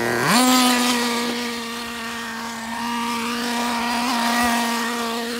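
Traxxas Nitro Slash RC truck's small two-stroke nitro engine revving up sharply in the first moment, then holding a steady high-pitched note at speed.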